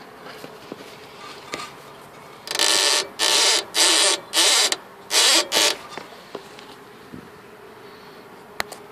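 A run of about six short, harsh creaking squeaks over roughly three seconds, starting about two and a half seconds in, as a part is worked back and forth. The owner puts the squeak down to the part running without its rubber piece and being dried out.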